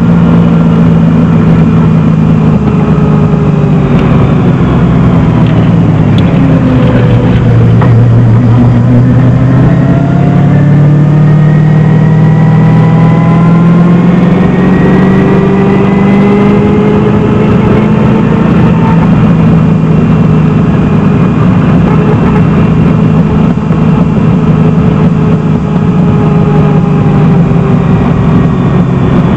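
A 1971 Datsun 240Z's swapped-in 327 small-block Chevy V8, heard loud from inside the cabin while driving on a race track. The revs drop about a quarter of the way in, climb steadily under acceleration for several seconds, then ease off slowly.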